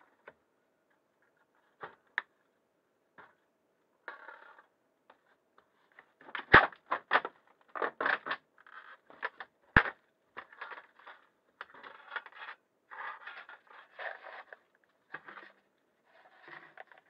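Irregular scraping, crunching and clicking, with two sharp knocks about six and a half and ten seconds in.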